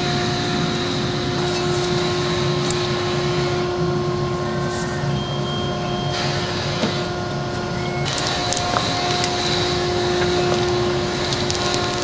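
Steady machine hum at a constant pitch, with a few faint clicks and knocks from handling parts.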